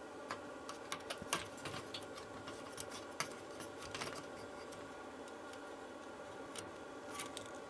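Faint scattered clicks and taps of small hand tools and a metal heatsink bracket being handled on a circuit board, with a screwdriver working at the bracket near the end.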